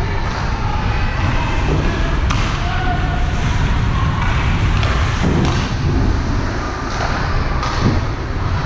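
Sounds of play during a youth game: a few scattered thuds and knocks over a steady background din, with faint distant voices.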